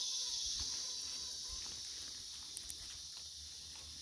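Steady, high-pitched chorus of insects in tropical forest, with a few faint knocks and rustles underneath.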